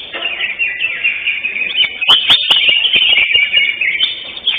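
Cucak hijau (greater green leafbird) singing a fast, continuous stream of chirps and trills, getting louder about two seconds in, with a few sharp clicks at that point.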